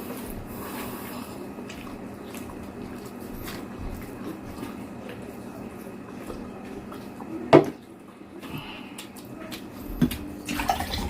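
Eating at a table: a steady low hum with small clicks of tableware, and one sharp clack of dishes about seven and a half seconds in, with a lighter knock near the end.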